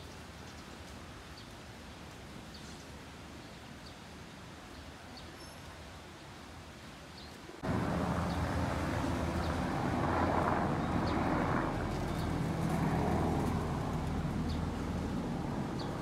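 Outdoor ambience with faint scattered bird chirps; about eight seconds in, a much louder steady noise with a low hum cuts in abruptly and continues.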